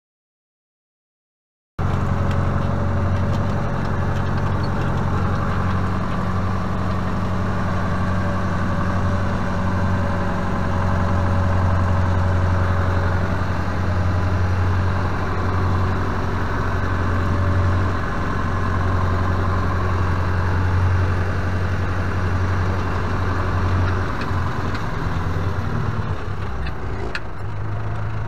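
Renault 656 tractor engine running at a steady speed, heard from the tractor cab, with a low even hum. It opens with under two seconds of dead silence.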